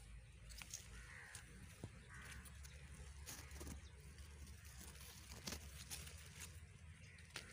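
Near silence: faint rustling and scattered light snaps of brush and twigs from someone moving through dense undergrowth, over a low steady rumble.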